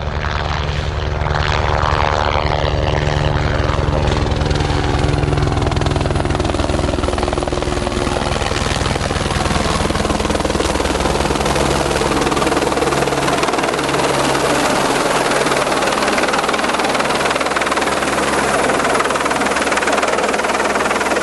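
Helicopter running close by, loud: a steady low rotor beat that fades after about twelve seconds under a dense rushing noise.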